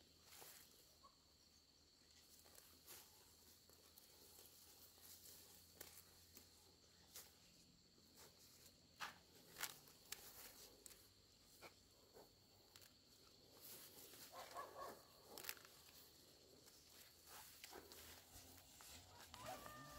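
Near silence: faint outdoor ambience with scattered soft clicks and ticks and a steady faint high-pitched tone.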